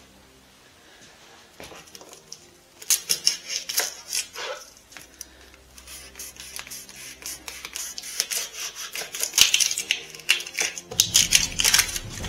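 Kitchen knife cutting and peeling an onion on a plastic cutting board: irregular quick clicks of the blade against the board and crackling of dry onion skin, starting about three seconds in.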